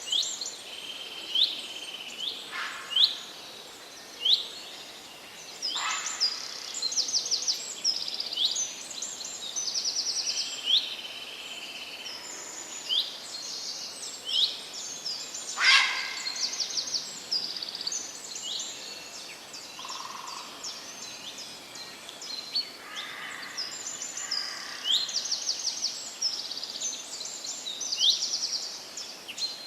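Several birds singing in a forest, with overlapping high chirps, quick sweeping notes and rapid trills, over a faint steady hiss.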